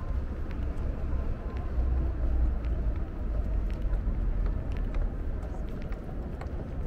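City street ambience: a steady low rumble of traffic, with faint scattered clicks and distant voices.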